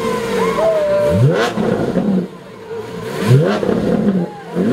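Lamborghini Centenario Roadster's 6.5-litre V12 revved in about three short throttle blips just after a cold start. Each rev rises sharply and falls back, and the engine drops to a lower idle between them.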